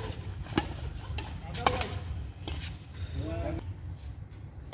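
Badminton rackets striking a shuttlecock in a doubles rally: a few sharp smacks, the loudest about halfway through, then a short shout from a player as the rally ends.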